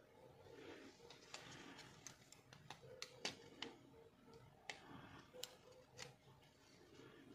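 Faint small plastic clicks and rustling from a Nokia 110 (TA-1192) feature phone's housing and parts being handled and pried apart with tweezers; about a dozen sharp ticks, the loudest a little after three seconds in.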